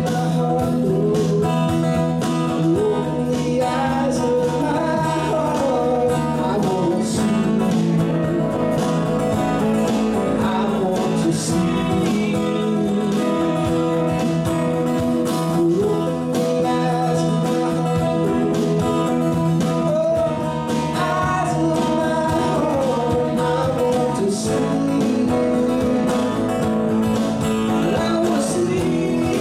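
Live band playing a song: a man singing over strummed acoustic guitar, electric guitar, electric bass and drum kit.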